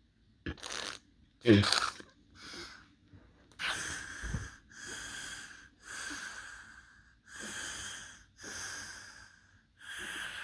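A person breathing heavily and rapidly close to the microphone, each breath about a second long and wheezy.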